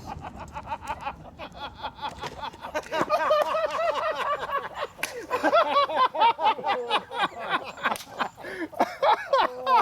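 People laughing and exclaiming in short bursts, getting louder about three seconds in, with scattered sharp clicks.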